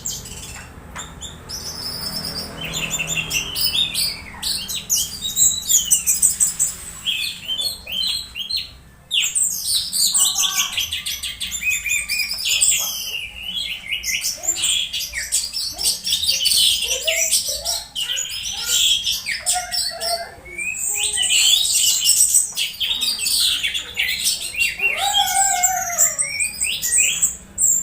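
Orange-headed thrush singing: a dense, varied run of fast chirps, whistles and warbling phrases, with a couple of brief pauses.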